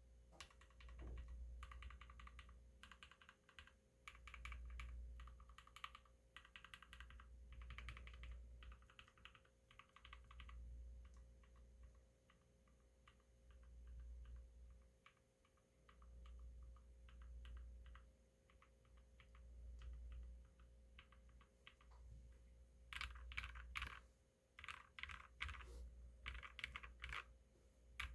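Mechanical keyboard with lubed JWK black linear switches in a Tofu60 case on a DZ60 PCB being typed on: fast runs of keystrokes, slower single key presses through the middle, then fast typing again near the end.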